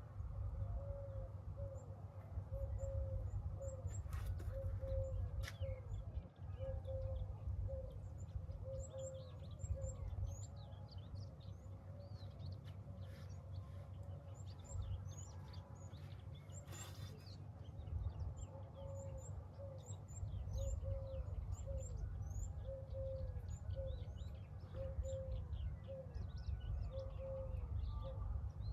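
Birds chirping with many short, high calls, and a short lower note repeated about once a second, over a steady low rumble.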